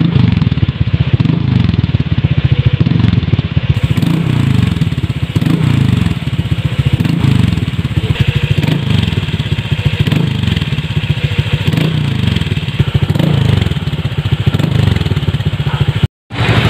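Honda Click scooter's single-cylinder engine running through an aftermarket Akrapovic exhaust pipe, revved in short blips again and again. It cuts off suddenly near the end.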